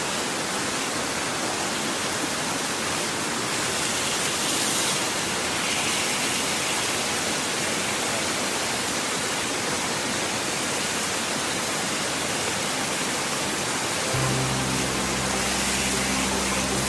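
Steady rushing of a mountain stream, an even hiss. Background music with held low notes comes in about fourteen seconds in.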